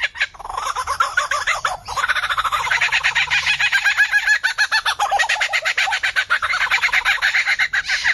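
A bird calling in a fast, unbroken run of repeated notes, about ten a second, shifting a little in pitch as it goes.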